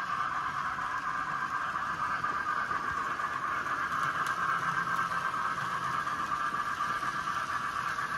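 N scale model trains running on the layout's track: a steady mechanical running sound from their small motors and wheels.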